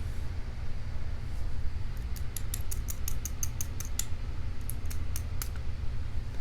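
Quick, light metallic clicks from a small tool working inside the disassembled padlock's pin chambers, trying to free a pin that won't come out, over a steady low hum. The clicks come about four or five a second for a few seconds, starting about two seconds in.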